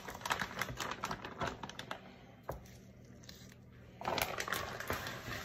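Thin plastic bag crinkling and rustling as a whole raw chicken is pulled out of it by gloved hands: a flurry of crinkles in the first two seconds, a lull, then another burst about four seconds in as the empty bag is handled.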